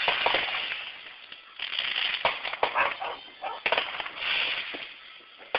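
Consumer fireworks going off in quick succession: several sharp bangs, each followed by a fading crackle. The bangs come at the start, about a second and a half in, a moment later, and near the four-second mark.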